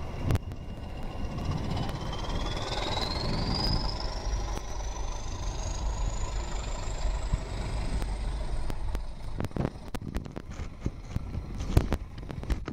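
Class 20 diesel locomotive pulling away under power: a deep engine rumble with a turbocharger whistle that climbs steadily in pitch for several seconds, then holds high. Near the end, coach wheels click sharply over rail joints as the train passes.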